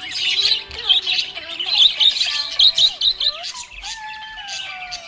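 Budgies chirping in a dense run of quick, high chirps, over background music with a held, slowly falling tone in the second half.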